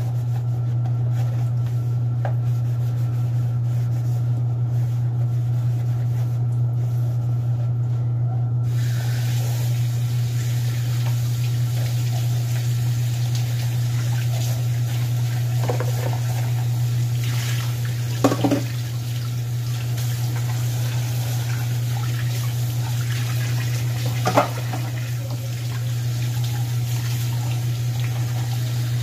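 Kitchen tap running into a sink while dishes and plastic containers are washed by hand; the water's hiss comes in about nine seconds in. A steady low hum runs underneath throughout, and two short knocks of dishware come in the second half.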